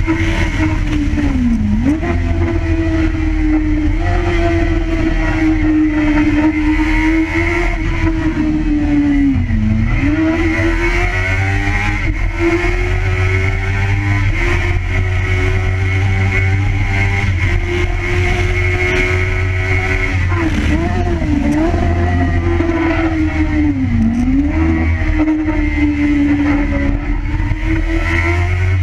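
Kawasaki ZX6R's inline-four engine running at steady high revs under way, the note dipping briefly and climbing back a few times, over a steady low rush of wind on the microphone.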